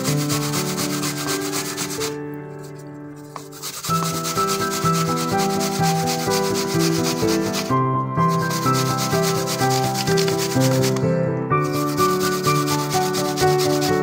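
Peeled apple grated on a stainless steel box grater: a run of repeated scraping strokes, stopping briefly about two, eight and eleven seconds in. Background music plays underneath.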